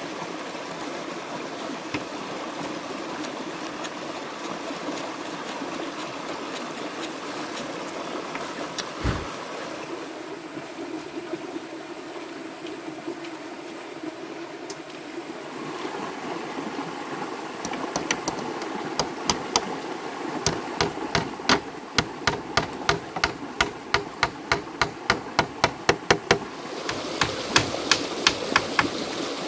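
A stream runs steadily over rocks. About nine seconds in there is a single sharp knock, then from about eighteen seconds on comes a steady run of strikes, about two a second, from a tool hammering on the bamboo table.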